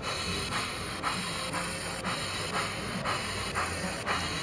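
Sound-equipped HO scale model of Strasburg Rail Road No. 90, a 2-10-0 steam locomotive, its speaker playing slow, even steam chuffs, about two a second, as it rolls along the track.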